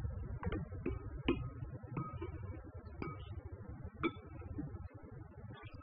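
Metal spoon clinking against a ceramic bowl while stirring tahini paste: about six light, irregular clinks with a brief ring, over a low steady hum.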